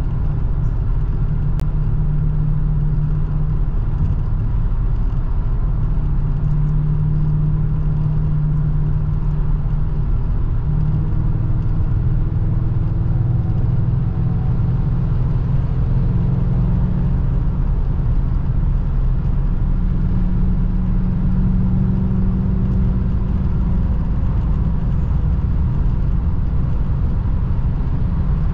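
Steady engine and road noise from a 2003 Mercedes-Benz E500 4Matic's 5.0-litre V8 while driving. The low engine note drifts slightly in pitch.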